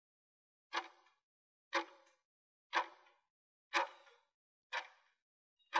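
Countdown timer sound effect ticking once a second as the answer time runs down, each tick short and sharp with a brief fading tail, starting just under a second in.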